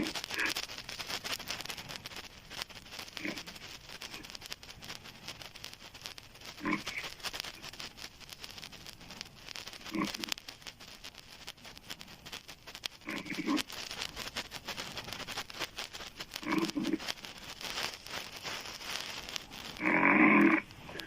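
A woman snoring loudly with her mouth open: six snores, about one every three and a half seconds, the last near the end the loudest and longest.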